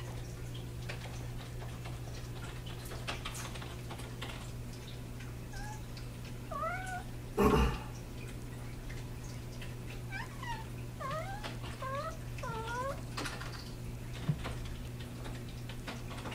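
Six-month-old kitten making short chirping meows in quick runs, about six seconds in and again from about ten to thirteen seconds, as she hunts a tiny flying bug. A loud brief thump about seven and a half seconds in, over a steady low hum.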